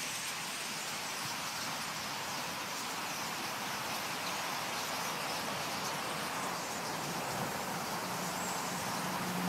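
Massed chatter of a huge flock of common starlings in a murmuration overhead, thousands of calls blending into one steady, high din. A low steady hum comes in near the end.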